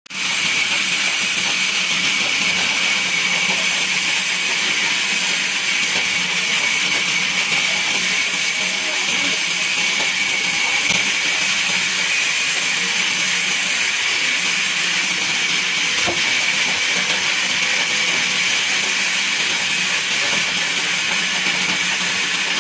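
Sawmill band saw cutting lengthwise through a log: a steady high-pitched whine over a hiss, with a low hum underneath, unbroken throughout.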